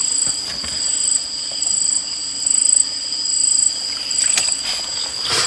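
Night insects calling: a steady high-pitched trill under a higher chirp that pulses a little more than once a second. A single sharp click sounds just before the end.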